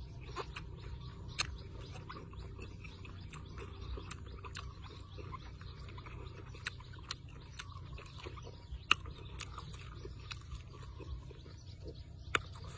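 Close-up eating sounds of a man chewing cow offal: irregular wet clicks and smacks of the mouth, a few sharper ones, over a steady low hum.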